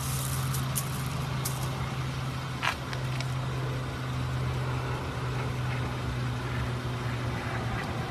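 Car engine running steadily at idle, with a few sharp crackles in the first second or so and a single sharp crack about two and a half seconds in.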